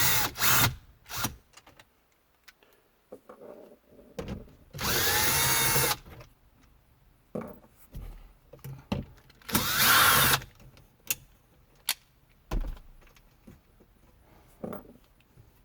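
Power drill-driver spinning in short runs as it backs out the radio's mounting screws, with two longer runs of about a second each, around five and ten seconds in, and light clicks and handling knocks between them.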